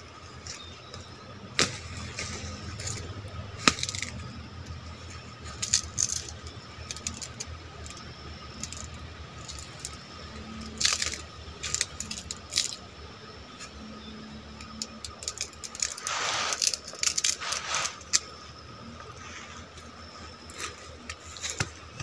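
Footsteps and rustling through forest undergrowth: leaves and ferns brushing and twigs crackling as a person pushes through, with scattered sharp clicks and a longer stretch of brushing about two-thirds of the way in.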